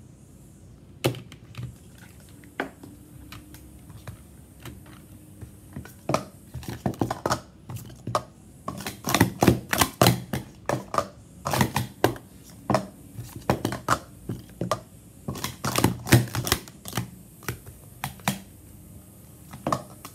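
Green Speed Stacks plastic sport-stacking cups clattering as they are rapidly stacked up and down on a mat: a few separate clacks at first, then from about six seconds in a dense, quick run of light plastic clacks and taps, thinning out near the end.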